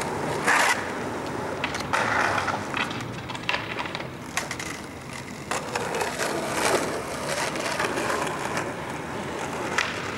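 Skateboard wheels rolling over street pavement, with several sharp clacks of the board hitting the ground at irregular moments.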